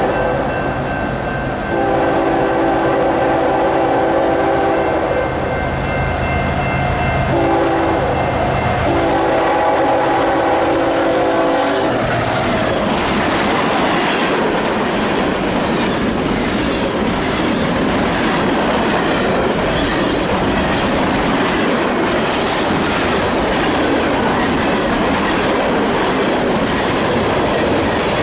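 CSX freight locomotive sounding its multi-chime air horn in a long blast, a short blast and a final long blast, the pattern that ends a grade-crossing warning, over the diesel engine's drone. About twelve seconds in the horn stops as the locomotive passes at speed, and the freight cars follow with steady rushing wheel noise and a fast clickety-clack over the rail joints.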